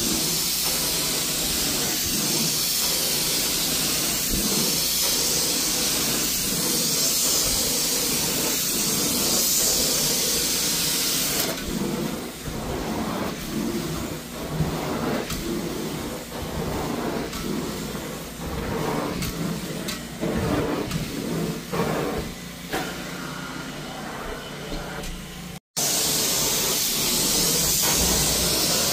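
Carpet extraction wand working over carpet: a loud, steady hiss of spray and vacuum recovery airflow. About halfway through, the high hiss drops away and the sound turns uneven and choppy for a while. After a sudden brief cutout, the full hiss returns near the end.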